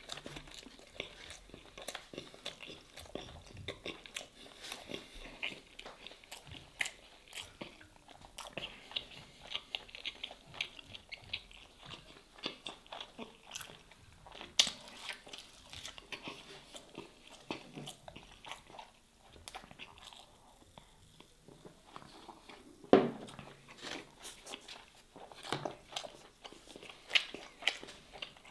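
Close-up chewing and biting of stuffed baked pastry: wet mouth clicks, smacks and soft crunches go on throughout. About two-thirds of the way through there is one louder thump.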